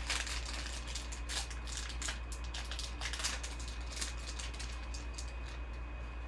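Trading cards and their pack wrapper being handled: a run of short, crisp rustles and clicks as the pack is opened and the cards are flicked through, over a steady low hum.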